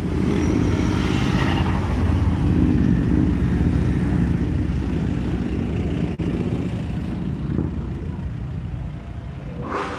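Mercedes-Benz G-Class V8 driving past close by, its deep engine and exhaust rumble strongest in the first few seconds, then slowly fading as it pulls away.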